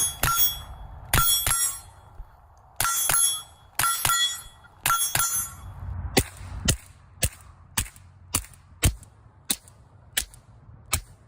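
Suppressed Ruger .22 pistol firing. The first five shots, spread over about five seconds, are each followed by a ringing metallic ping. Then comes a quicker string of about nine sharp cracks without the ring.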